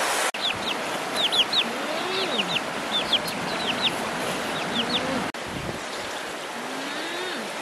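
Young chickens peeping: a rapid run of short, high, downward-falling peeps, several a second, stopping about five seconds in, with a few lower calls among them, over the steady rush of a stream.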